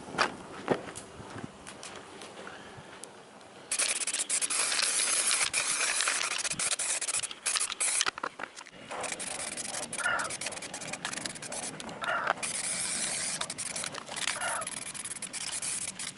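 Aerosol spray-paint can hissing in long bursts as paint is sprayed onto a scooter's exhaust pipe and muffler. It starts a few seconds in, with brief breaks between passes.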